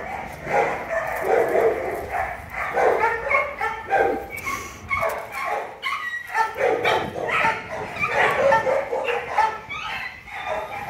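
Dogs barking and yipping, many short calls in quick succession with hardly a pause.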